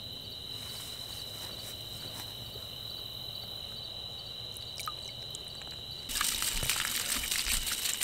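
Water splashing and pouring off a hand and flashlight lifted out of a tub of water, starting suddenly about six seconds in and continuing as a dense spatter of drips. Before that, only a quiet stretch with a steady high-pitched whine in the background.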